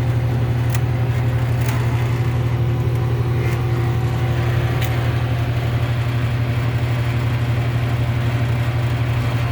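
Pop vending machine's refrigeration unit running with a computer fan fitted as its condenser fan: a steady low hum with a few light ticks. It sounds like a unit running normally, with little vibration.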